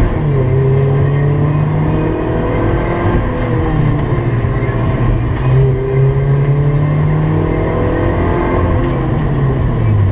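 2006 Mazda Miata's four-cylinder engine, heard from inside the cabin while driven hard through an autocross course. The engine note holds fairly steady for stretches and rises and falls with throttle, dipping about three seconds in and again near the end.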